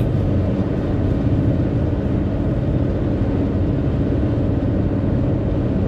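Steady low road noise inside a moving car's cabin on the highway.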